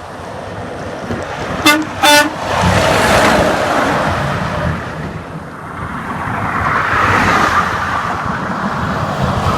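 A Peterbilt semi truck sounding two short horn toots as it approaches, followed by the rumble of the truck and other heavy traffic passing close by, swelling twice.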